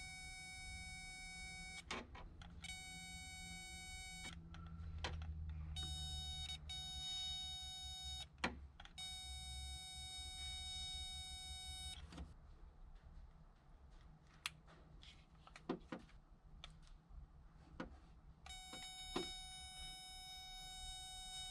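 A steady electronic buzz tone that switches on and off in stretches of one to three seconds, five times, with scattered sharp clicks between. A low hum runs underneath and stops about twelve seconds in.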